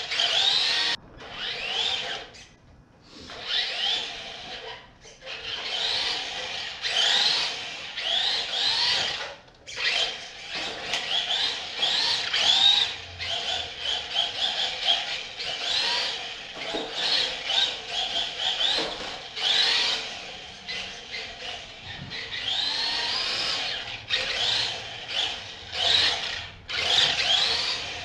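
LaTrax 1/18-scale electric RC car's motor and gear drive whining in repeated throttle bursts, the pitch rising and falling as it speeds up and slows, with short pauses where the throttle is let off, about a second in, around three seconds in and near ten seconds in.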